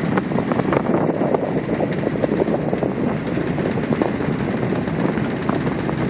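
Wind buffeting the microphone, a steady fluttering rush, on the deck of a sailboat under way in open water.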